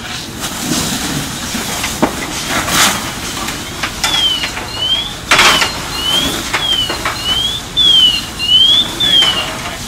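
A high-pitched electronic alarm that sweeps up and down over and over, about two sweeps a second, starting about four seconds in. Short bursts of hissing noise come and go around it.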